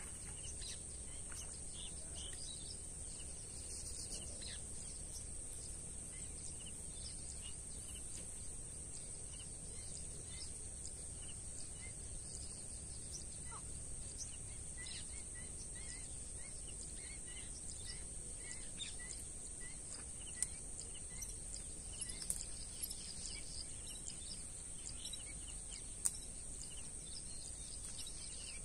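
Open-air ambience: birds chirping and calling here and there over a steady high-pitched drone and a low rumble, with a few sharp ticks in the last third.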